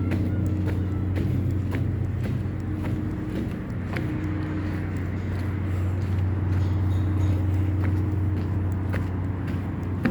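A steady low engine drone with a constant pitch, with scattered light clicks over it.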